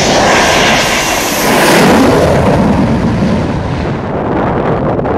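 Propeller aircraft flying low past, its engines droning. The sound is loudest about two seconds in, and the pitch drops as it passes.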